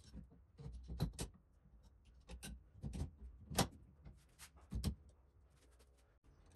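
Metallic clicks and knocks of 20mm stainless steel rods and a 1605 ball screw being slid and seated into the support blocks of a steel-tube CNC axis. About half a dozen sharp taps, the loudest about three and a half and five seconds in.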